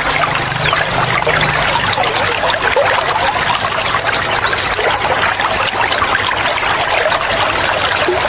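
Running water trickling and splashing steadily, with wild birds chirping over it in short, high calls, a burst of them about three to four seconds in.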